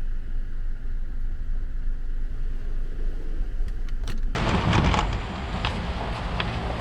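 4x4 engine idling with a steady low rumble. About four seconds in, a louder, wider hiss-like noise comes in suddenly and continues.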